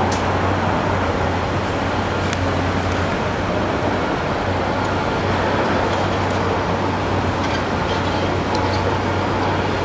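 Cat 385C L hydraulic excavator's diesel engine running steadily, a constant low drone under a wash of machine noise.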